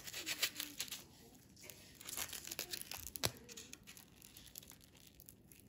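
Plastic cling wrap being cut with a knife and peeled off a foam meat tray, crinkling and tearing. Busiest for about the first three seconds, then quieter.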